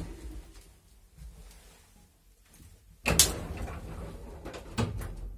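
Elevator doors closing: a sudden heavy bang about three seconds in that dies away, followed by a few sharp clicks and knocks from the door mechanism.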